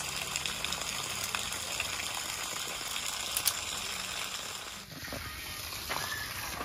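Small wood campfire hissing steadily, with a few sharp crackles and pops.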